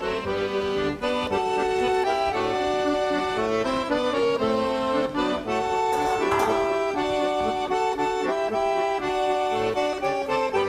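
Accordion music, with held melody notes over chords.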